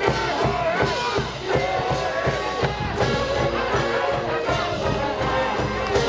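Brass band cheering music from the stands at a high school baseball game: trumpets playing a melody over a steady drumbeat.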